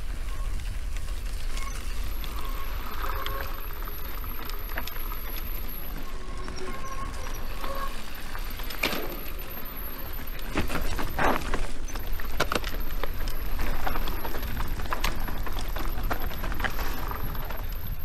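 Mountain bike rattling and clattering over a rough trail, with a steady low wind rumble on the microphone; the knocks come thicker and louder around the middle.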